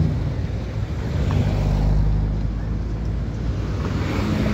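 City street traffic: cars and a taxi driving past close by, engines running with a steady low hum under tyre noise, swelling slightly near the end as a car comes close.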